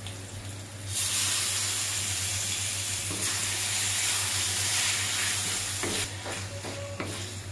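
Shelled cockles tipped into hot sambal in a wok, setting off a loud steady sizzle about a second in. Near the end a wooden spatula scrapes and stirs them through the sauce.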